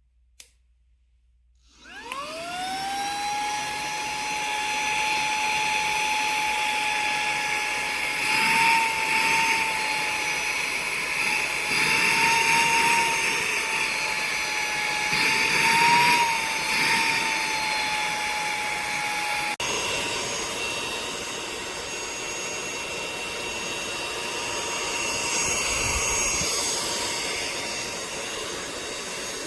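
Cordless handheld car vacuum (Quotor mini) switched on with a click, its motor spinning up to a steady high whine. The pitch wavers briefly a few times. After an abrupt break it runs on as a steadier rushing noise without the clear whine.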